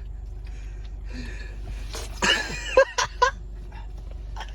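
A person coughing and choking on dust in the mouth: one long rasping cough about two seconds in, then three short sharp coughs.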